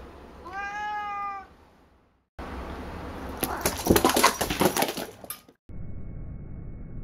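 A domestic cat meows once, about a second long, its pitch rising and then holding. Then comes a rapid run of scrabbling, clicking and thumping, which is paws pounding on a wooden floor as the cat dashes after a ball, loudest near the middle. After it stops, only a steady low hiss remains.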